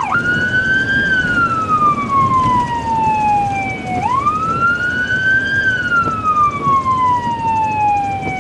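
Fire department vehicle's electronic siren switching from a fast yelp to a slow wail: the pitch climbs quickly, then falls slowly over about three seconds, repeating about every four seconds, over road and engine noise.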